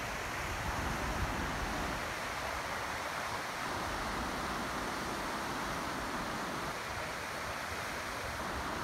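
Steady rush of the Apurímac River running over rapids, an even hiss with no breaks.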